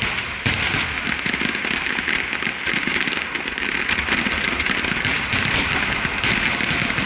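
Aerial fireworks display: many shells bursting together in a dense, continuous crackling with many sharp cracks.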